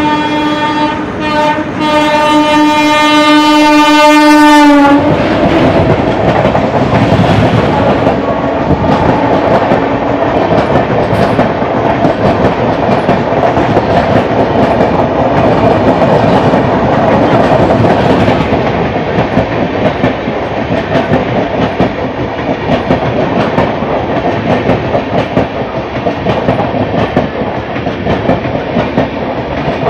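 Locomotive horn of the overtaking Duranta Express sounding one long note, dropping slightly in pitch as it cuts off about five seconds in. Then the loud rumble and wheel clatter of the express's coaches passing close alongside on the next track, running on steadily.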